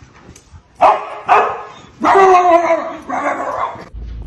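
A dog barking: two short barks about a second in, then a longer call that falls in pitch, and a shorter one after it.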